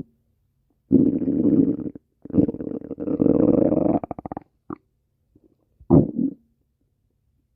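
Human stomach growling in four gurgling rumbles. The first lasts about a second, and the second lasts about two seconds and ends in a fast flutter. Two brief gurgles follow.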